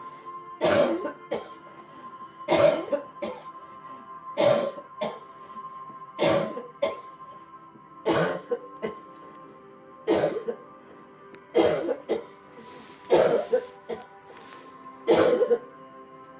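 A person coughing hard and deliberately on cue in a steady series: nine forceful coughs about every two seconds, most followed by a smaller second cough. Steady drone-like background music plays underneath.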